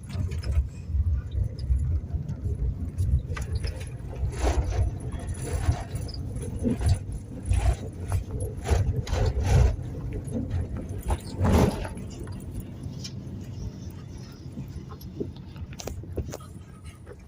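Car cabin noise while driving: a low rumble from the engine and tyres, with repeated knocks and rattles as the car goes over uneven ground. It grows quieter over the last several seconds.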